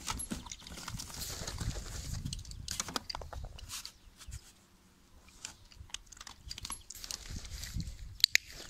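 Dog scrabbling inside a cardboard box, its claws scratching and rustling on the cardboard for the first few seconds, then scattered light clicks and taps as it settles.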